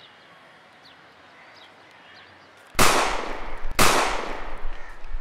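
Two gunshots about a second apart, each a sharp crack that trails off in a long echo.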